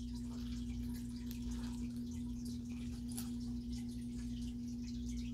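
A steady single-tone hum, with a few faint clicks and rustles over it.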